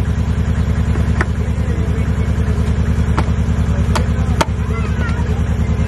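A steady low engine drone with an even pulse of about nine beats a second, like a motor idling close by. A few sharp clicks and a knock sound over it as the plastic transmission filter is handled into place.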